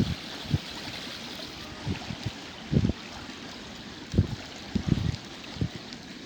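Strong wind buffeting the microphone in irregular short low thumps, over a steady rush of wind and lapping water.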